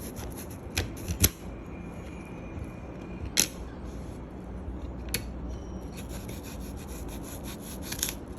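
Small kitchen knife cutting into a fresh apple: a few sharp, crisp snaps as the blade breaks through the flesh, with soft scraping between them.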